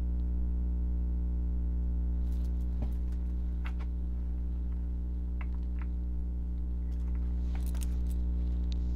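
Oracle cards being shuffled by hand: faint scattered rustles and light taps that start about two seconds in and thicken near the end. Under them is a steady low hum.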